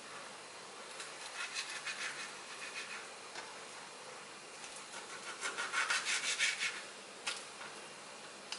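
Kitchen knife sawing through raw beef on a plastic cutting board: two runs of quick strokes, the second louder, with a few sharp clicks in between.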